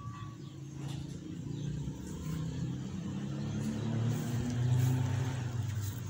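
Low, steady engine hum, getting louder about four to five seconds in.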